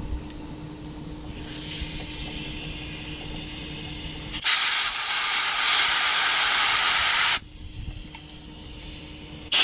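Aerosol carburetor cleaner sprayed through an outboard carburetor's jets: a faint hiss from about a second and a half in, then a loud steady spray of about three seconds that cuts off suddenly, and another loud blast begins right at the end. The spray is flushing jets clogged with gummy residue from old fuel.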